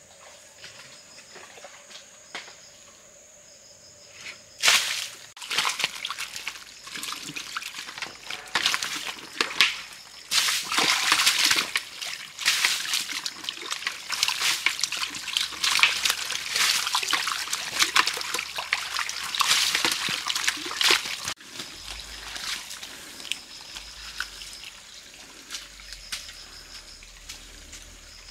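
Water splashing and sloshing, with trickling, starting about five seconds in and stopping suddenly about five seconds before the end.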